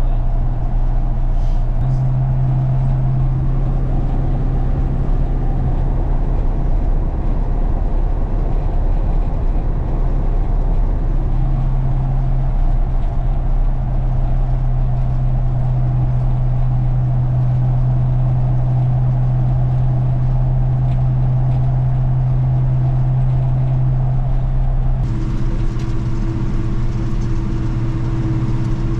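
1980 Chevy K20 pickup cruising steadily in four-wheel drive: a continuous low hum of engine, drivetrain and tyres. About 25 seconds in the hum changes pitch and a higher tone joins it.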